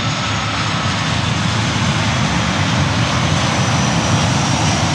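Jet airliner flying low on its landing approach, landing gear down: a steady, loud engine rumble with a faint high whine above it.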